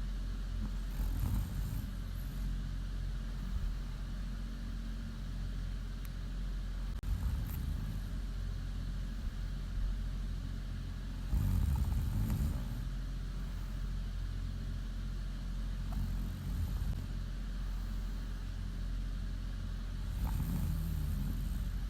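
A woman snoring in her sleep: a low rumbling breath about every four to five seconds, the longest and loudest about halfway through, over a steady low hum.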